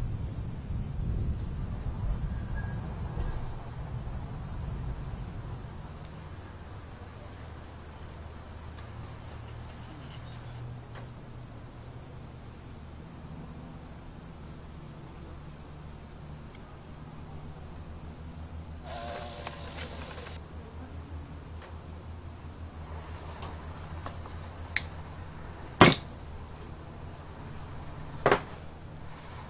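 Crickets chirring steadily, a constant high trill. A low rumble fills the first few seconds, and three sharp clicks come near the end, the second the loudest.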